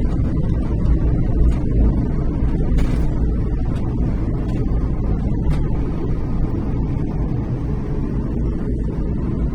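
Low, steady roar of heavy typhoon surf and wind, with a few faint sharp ticks.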